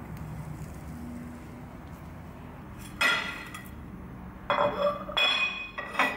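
Ceramic plate and utensils clinking on a hard countertop: four sharp clinks with brief ringing, all in the second half, over a steady low hum.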